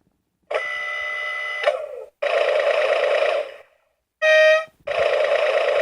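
Finn McMissile (Disney Pixar Cars) toy alarm clock sounding its electronic alarm through its small speaker: four buzzy electronic bursts with short gaps between them, the third one brief.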